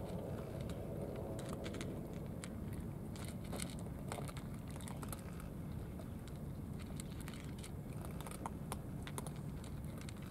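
Several cats eating from shallow plastic trays: irregular small clicks and crunches of chewing, over a steady low background rumble.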